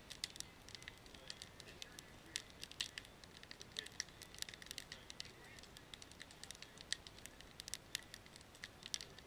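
Wood campfire of split logs crackling, with irregular sharp pops, a few of them louder.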